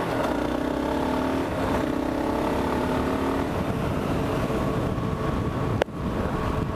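Kawasaki KLR650's single-cylinder engine running under way, its note rising steadily for the first few seconds as the bike accelerates, then holding steady. A sharp click with a brief dropout comes near the end.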